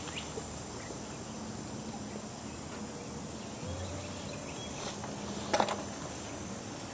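Coturnix quail cooing faintly over a steady outdoor hiss, with one sharp knock about five and a half seconds in.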